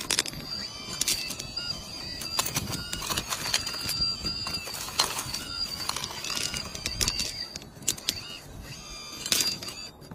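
Kabolite K961-100 1/18 hydraulic RC excavator at work: pebbles clatter and scrape in irregular clicks as the bucket digs, over a steady high whine from its hydraulic pump.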